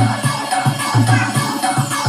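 Loud electronic dance remix from an orkes tunggal keyboard rig, with a heavy bass beat about twice a second. A falling whistle-like sweep comes near the end.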